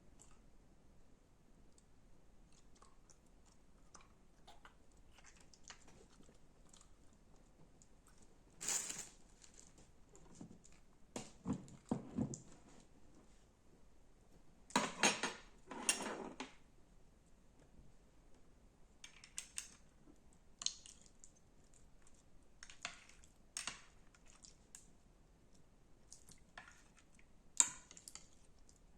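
Homemade slime being worked by hand or stirred: scattered small clicks and crackles, with a few louder, longer squishing bursts near the middle.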